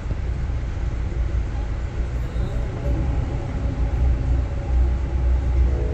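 Freight train of tank cars rushing past close by: a loud, steady rumble of wheels on rail.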